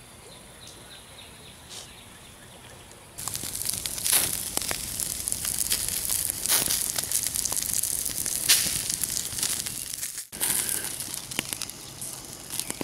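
Wood campfire crackling and snapping in dense, irregular pops close to the microphone, starting abruptly about three seconds in after a quiet stretch.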